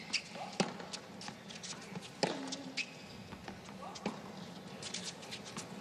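Tennis rally on a hard court: racket strikes on the ball about every second and a half to two seconds, one with a player's grunt that falls in pitch. Short sneaker squeaks come between shots.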